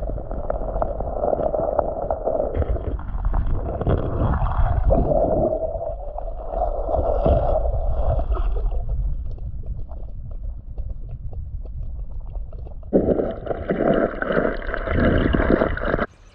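Muffled gurgling and churning of creek water, heard with the microphone held underwater while a bass is released. It gets louder about three-quarters of the way through, then cuts off suddenly.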